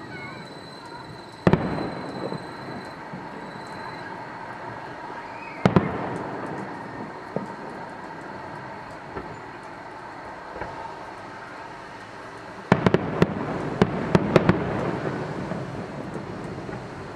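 Fireworks shells bursting: single booms about a second and a half and six seconds in, then a rapid run of several bangs near the end, over a steady crackle.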